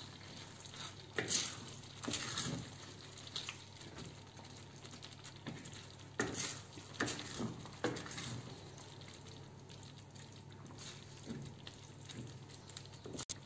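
Wooden spoon stirring a thick, creamy chicken and vegetable filling in a stainless steel pot: irregular soft squelches and scrapes, one every second or so.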